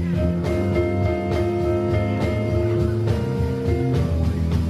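Live jazz combo playing: drum kit with cymbals keeping a steady beat under held chords and an electric bass line.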